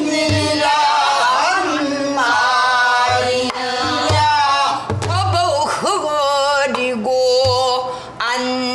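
A woman singing pansori in long held, heavily wavering notes, accompanying herself with a few strokes on a buk barrel drum.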